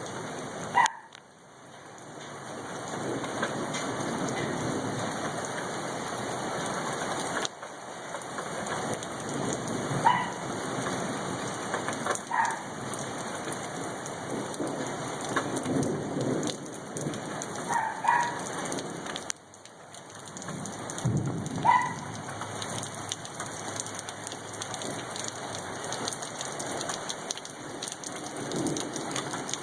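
Hail and rain pelting down in a storm: a dense steady hiss, with a sharper ringing hit every few seconds.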